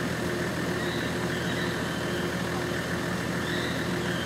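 A motor vehicle's engine idling steadily, a low even drone with no change in speed.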